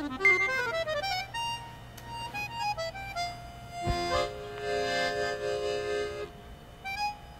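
Accordion music: quick runs of notes, then a held chord about four seconds in.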